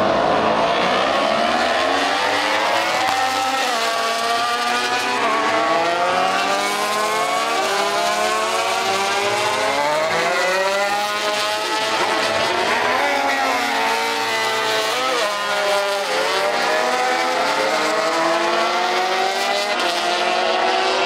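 800 cc four-stroke MotoGP race bikes accelerating out of pit lane onto the track, several engine notes overlapping, each rising and dropping as the riders change gear.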